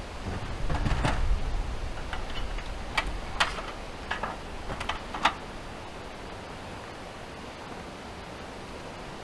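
About half a dozen sharp clicks and knocks over a low rumble in the first five or so seconds, then only a steady hiss.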